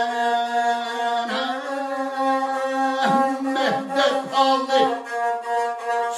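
Lahuta, the Albanian single-string bowed lute, playing a sustained nasal melody line that holds steady at first and then turns to quick dips and turns in pitch about halfway through.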